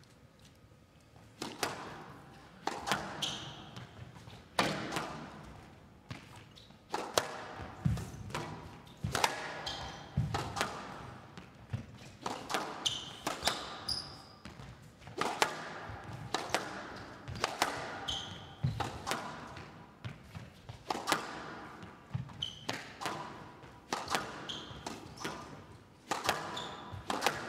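A long squash rally: the rubber ball struck by rackets and hitting the court walls about once a second, with short high squeaks of players' shoes on the court floor. It starts with a serve after a quiet moment.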